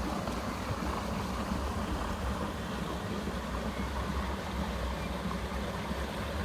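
Steady outdoor rushing noise, a low rumble with a hiss over it, from running water and wind on the microphone near a waterfall. A sharp click right at the start.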